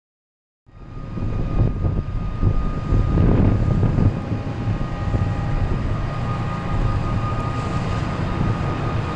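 Steady low rumble of marine diesel engines from the docking tanker and its tugboat, with a few steady whining tones above it. It fades in about half a second in, after a moment of total silence.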